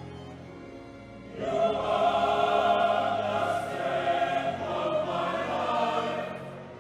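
Choral music: a choir singing sustained notes, swelling louder about a second and a half in and easing off near the end, over soft sustained low accompaniment.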